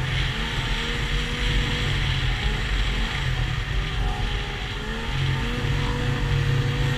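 Yamaha SX Viper snowmobile's 700 cc two-stroke triple running at a steady cruise under the rider, its pitch wavering slightly as the throttle shifts.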